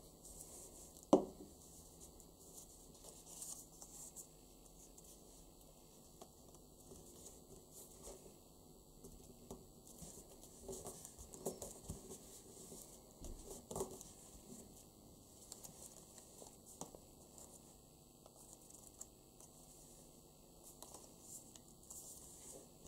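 Faint rustling, scraping and soft tapping of paper being folded, pressed flat and handled on a tabletop, with one sharper knock about a second in.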